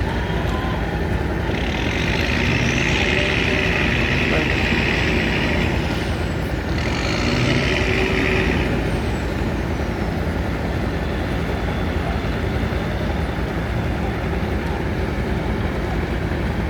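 Fishing boat's engine running with a steady low rumble as the boat comes in to shore. Two stretches of loud hissing sound over it in the first half.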